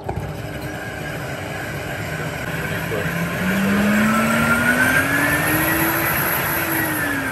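RoboClean water-filtration vacuum's motor starting up and running with a steady rush of air. From about halfway in its pitch rises and it gets louder as the suction level is turned up on the touch screen, then the pitch drops back near the end.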